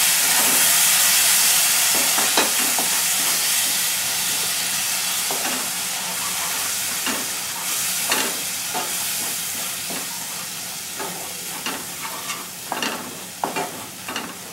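Ground spices and fried onion sizzling in mustard oil in a non-stick pan, just after a splash of water was added to keep the spices from burning: a loud hiss that gradually dies down as the water cooks off. A wooden spatula scrapes and taps against the pan as it stirs, more often near the end.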